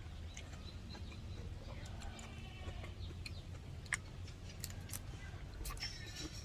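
Faint chicken clucking in the background, with scattered light clicks and taps.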